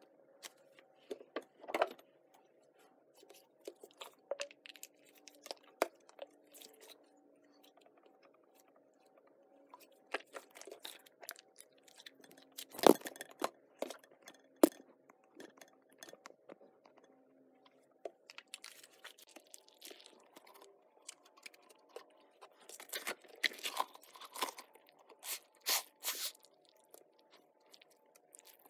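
Slime being squeezed and poked by hand: irregular sticky clicks, crackles and small pops, with one louder snap near the middle and a busier run of crackling toward the end. A faint steady hum lies underneath.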